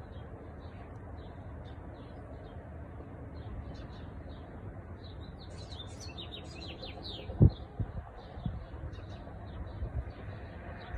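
Small birds chirping in quick short notes, busiest around the middle, over a steady low rumble. A dull low thump about seven seconds in, then a few softer ones.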